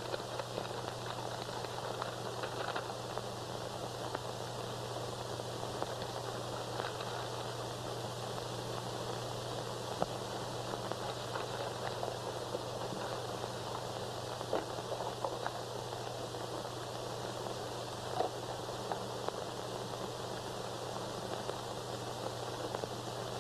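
Steady hiss and low hum of an old optical film soundtrack, with scattered faint crackles and clicks.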